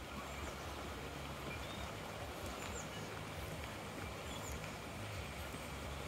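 Wind rumbling on a phone microphone, with a few faint, short bird chirps over it.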